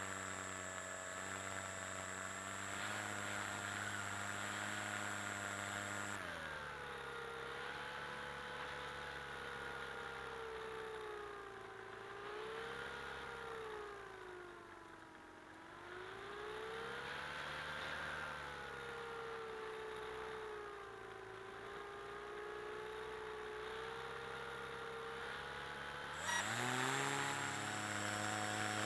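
Model glider's pylon-mounted motor and propeller running, heard from on board. About six seconds in it throttles back to a lower pitch that rises and falls slowly. Near the end it is throttled up again, with a quick rise in pitch and loudness.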